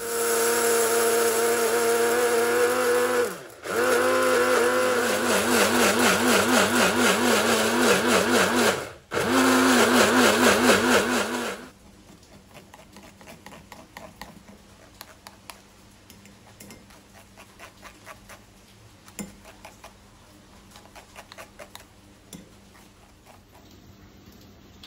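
Electric blender grinding soaked mustard seeds and green chillies into paste. It runs in three spells of a few seconds each with brief stops, and its pitch wavers. After about twelve seconds come faint, irregular scrapes and ticks of a spoon pressing the paste through a metal sieve.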